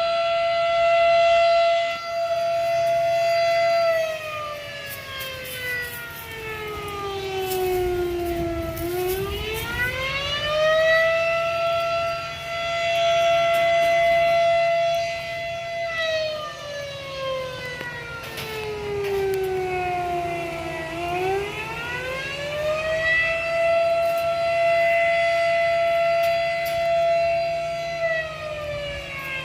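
Warning siren wailing in a slow cycle: a steady high tone held for several seconds, a slow fall in pitch, then a quick rise back, repeating about every twelve seconds.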